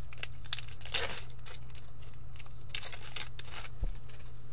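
Hockey trading cards rustling and sliding against each other as they are flipped through by hand, in short crisp bursts about a second in and again near the end, with a light tap just before the end. A faint steady low hum runs underneath.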